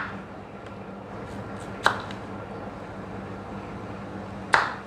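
Kitchen knife slicing through a raw carrot and striking a wooden chopping board: two sharp cuts about two and a half seconds apart, over a steady low hum.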